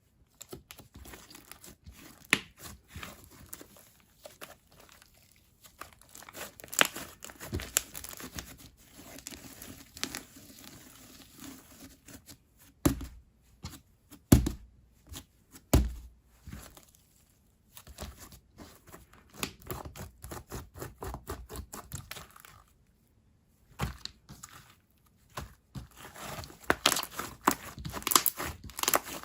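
Thick, glossy slime being stretched, folded and squeezed by hand, giving many sharp sticky clicks and crackles, with a few louder bubble pops in the middle.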